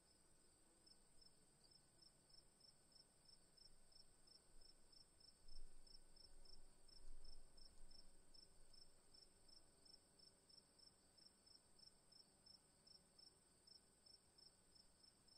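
Near silence: an insect chirping faintly, short high chirps about three a second, over a steady high whine, with a couple of soft low bumps about halfway through.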